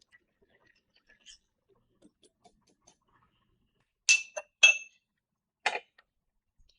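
A spoon clinking against a drinking glass: two sharp ringing clinks about half a second apart, then a duller knock about a second later.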